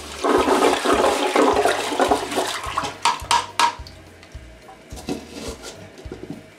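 Toilet flushing: water rushing and swirling in the bowl, dying down after about four seconds, with a few sharp clicks near the three-second mark.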